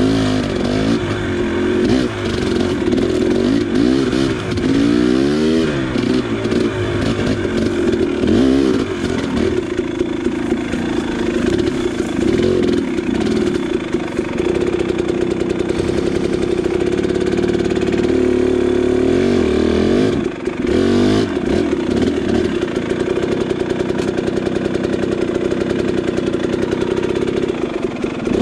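KTM 300 XC two-stroke single-cylinder dirt bike engine being ridden, its pitch rising and falling over and over as the throttle is worked. It dips briefly about twenty seconds in.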